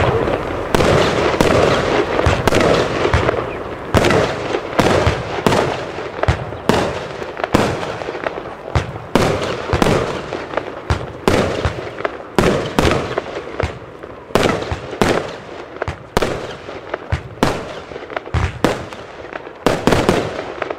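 Lesli Z-Willow 25-shot fan cake firing. A steady run of sharp shots from the tubes and the bangs of their bursting shells, about one or two a second, ending right at the end.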